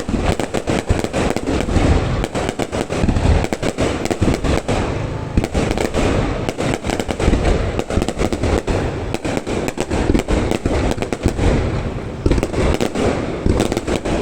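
Fireworks display: a dense, continuous barrage of bangs and crackling reports, many shots a second, over a constant low rumble of distant bursts.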